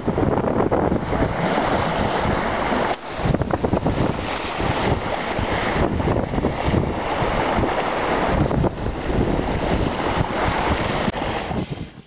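Wind buffeting the microphone over the rush and splash of sea water along a sailing yacht's hull, dipping briefly about three seconds in and fading out near the end.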